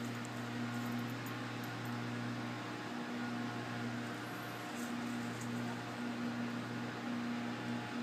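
A steady low mechanical hum over a hiss, with a second low tone that cuts in and out.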